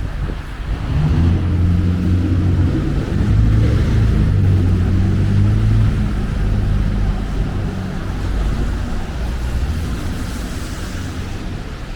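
A motor vehicle's engine running close by with a low, steady hum that swells about a second in and fades after the middle, over street traffic and wind noise.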